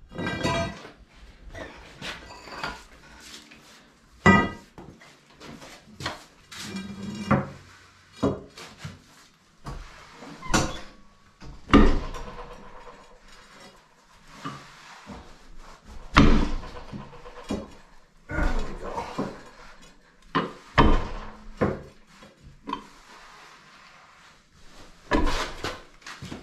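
Irregular metal knocks, clanks and scraping as a 6,000 lb Brown & Sharpe No. 2 heavy milling machine is pushed and slid across oiled steel plates, with a few short squeaks or rings.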